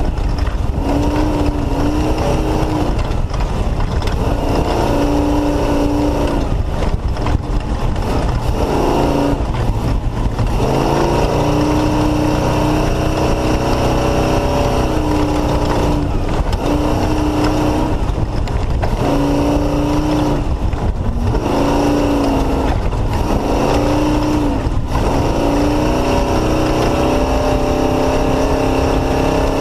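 Off-road race car's engine running hard, revving up and falling back in repeated surges every few seconds as the throttle comes on and off, over a steady loud rushing noise.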